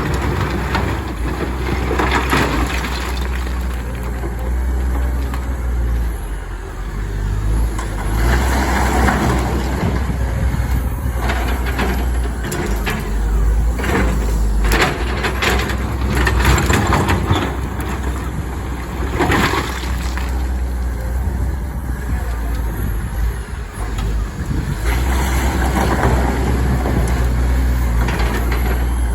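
Komatsu hydraulic excavator's diesel engine running steadily under load while loading rock, with bursts of rock clattering and banging against steel, heaviest between about eight and twenty seconds in.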